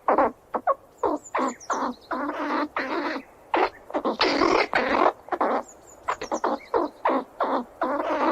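Squirrel squealing: an irregular run of short, harsh squeals and chirps, with one longer drawn-out squeal about four seconds in.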